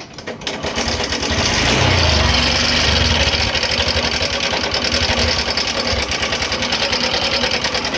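Honda Shine BS6's single-cylinder 125 cc engine starting about a second in and then idling with a loud, fast, even mechanical clatter, a tractor-like sound. The noise comes from a slack timing chain whose tensioner has failed, plus loose rocker arms.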